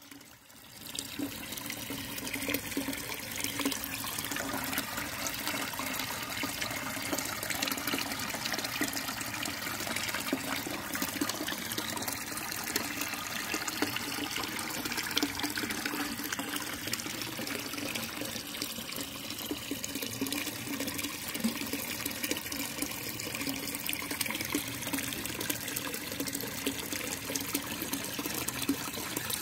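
Water pouring steadily into a koi pond from an inlet pipe, splashing and churning at the surface. It starts about a second in.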